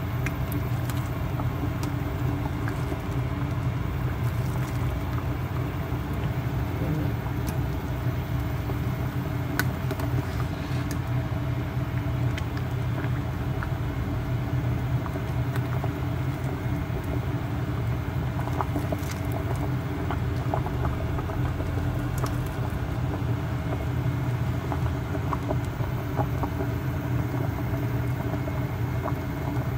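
A pot of vegetable soup at a rolling boil, with faint bubbling pops and ticks over a steady low hum from the stove.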